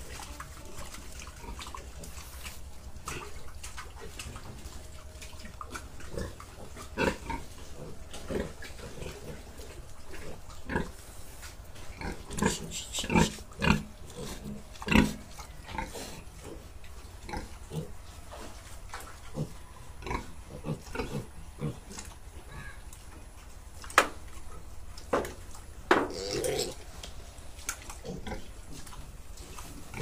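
Pigs in a pen making short, scattered calls, busiest around the middle and again near the end, over a steady low hum.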